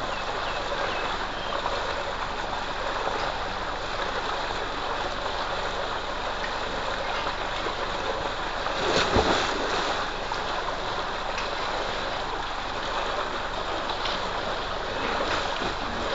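Water gushing steadily from a pipe outlet into a concrete tank, with a big splash about nine seconds in as a person jumps into the water.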